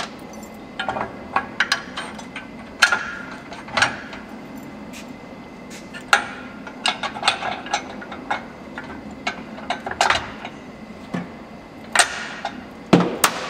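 Steel pins and a steel extension piece clinking and knocking against a steel jack frame as they are handled and slid into place, in irregular sharp knocks, some with a short metallic ring. A couple of harder taps from a rubber mallet come near the end as a part is seated.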